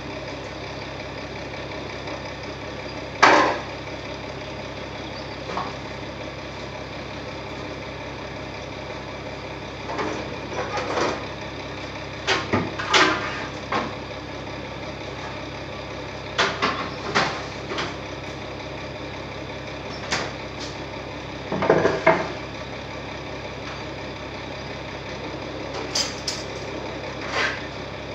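Heavy diesel tipper lorry idling steadily. Short irregular knocks and clatters break in every few seconds, the loudest about three seconds in and around twenty-two seconds.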